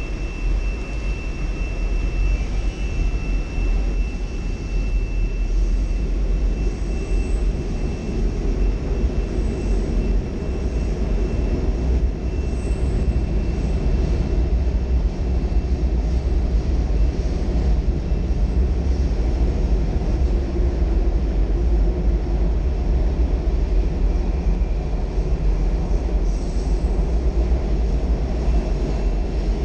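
Washington Metro 7000-series subway train heard from inside the car as it pulls out of a station and runs through a tunnel: a loud, steady rumble of wheels and running gear. A thin high whine sits over it for the first few seconds.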